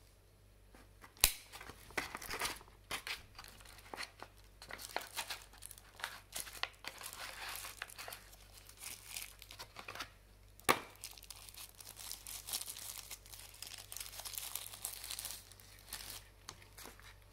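Thin wrapping crinkling and rustling as it is pulled off an earbuds' charging case by hand, with a sharp click about a second in and another near eleven seconds in.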